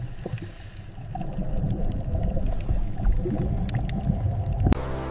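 Underwater sound: a low rumble with bubbling, gurgling water and scattered faint clicks. Near the end it cuts off sharply and a cow begins a long, low moo.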